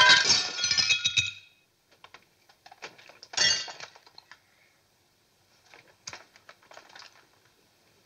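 A glass pane in a door shattering, the shards tinkling down and dying away over the first second and a half. After that come a few scattered clinks of loose glass pieces, the loudest about three and a half seconds in.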